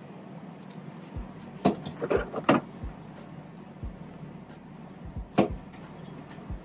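A few short knocks and rattles of items being handled, over a steady low machine hum.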